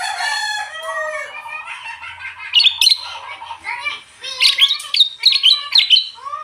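Sooty-headed bulbul singing: a run of arched, bubbly whistled notes, broken by loud sharp chips about two and a half seconds in and by a quick series of them about four and a half to six seconds in.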